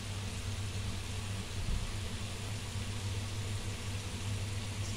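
Pork and bitter gourd stir-fry sizzling steadily in a hot pan, over a constant low hum.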